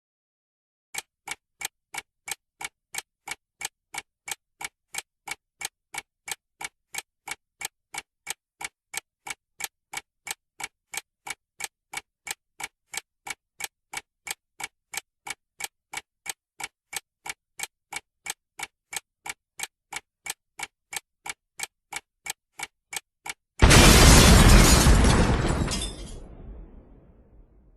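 Alarm clock ticking in a fast, even rhythm, several ticks a second. Near the end the ticking stops and a sudden loud blast of noise, like an explosion, fades away over a few seconds.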